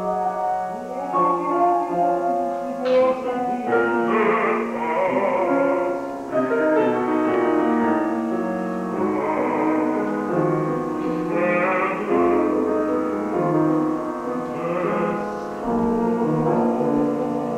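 A baritone sings an arrangement of a Ukrainian folk song in full operatic voice, holding long notes with vibrato, accompanied by a grand piano.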